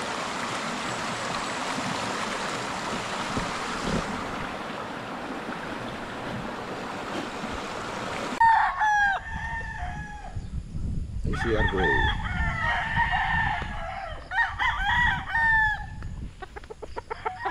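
A steady rushing noise, then, about halfway in, gamecocks crowing: several roosters in turn and overlapping, one crow after another.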